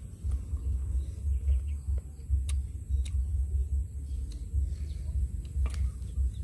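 Wind buffeting the microphone in an uneven low rumble, with a few sharp clicks of a small knife cutting into young green mango.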